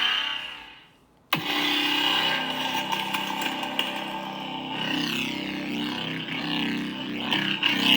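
Lightsaber sound font playing through a Proffieboard saber's 28mm speaker. A sound fades away in the first second; then, a little over a second in, the blade ignites suddenly and settles into a steady hum. Swing sounds rise and fall over it in the later seconds.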